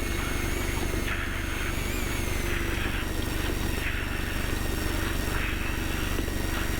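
Off-road race truck driving under power over rough ground, heard from inside the cab: a steady low engine and drivetrain rumble with a constant drone and a thin whine over it.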